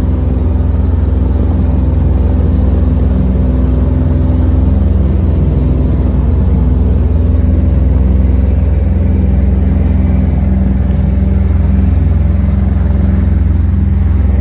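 Enclosed lifeboat's diesel engine running steadily under way: a loud, unchanging low drone, heard from aboard the boat.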